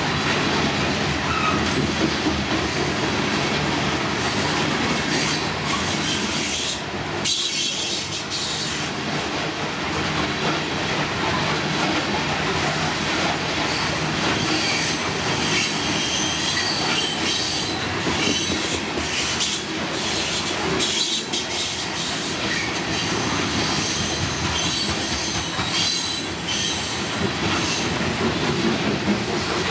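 Train rolling past with a steady rumble and clatter of wheels over the rails. A thin, high wheel squeal rises from about five to seven seconds in, and repeated clicks continue throughout.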